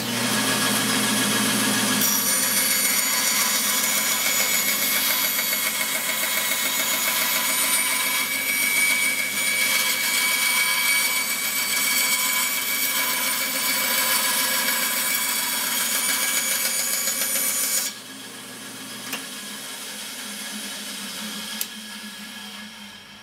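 Band saw running and cutting a curve, a steady whine with several fixed tones over a rushing noise. About eighteen seconds in it drops sharply in level, then runs on more quietly and fades near the end.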